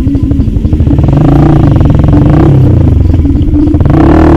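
Motorcycle engine pulling away from low revs and accelerating. Its pitch climbs and drops back at two gear changes.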